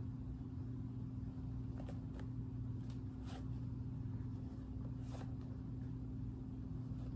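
Faint rustles and light taps of a sneaker being turned over in the hands, over a steady low hum.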